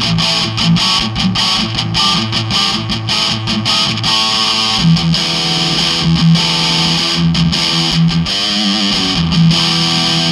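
Electric guitar played through a Marshall Lead 12 solid-state amp with an overdriven tone: a mid-scooped sound with the bass and treble turned up. The playing is a fast, continuously picked chord riff.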